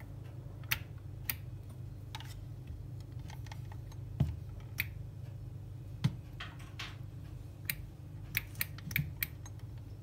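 Sharp plastic clicks and taps as the clear lid of an electric coffee grinder is handled and pressed: about a dozen scattered clicks, with a heavier knock about four seconds in and another about six seconds in.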